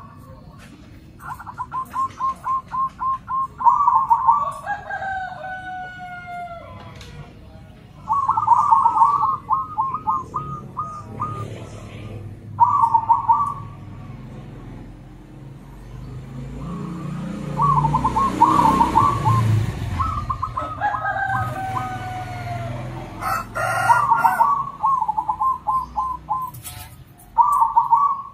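Zebra doves (perkutut) calling back and forth, each phrase a quick run of soft staccato coo notes, repeated many times. Twice another bird cuts in with a longer, drawn-out falling call, and a low rumble swells and fades in the middle.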